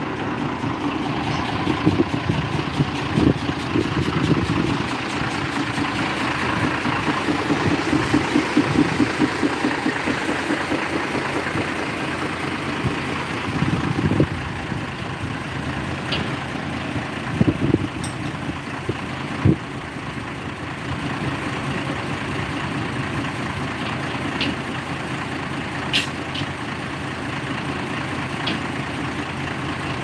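Heavy diesel truck engine running steadily, with a few sharp knocks in the middle and later part.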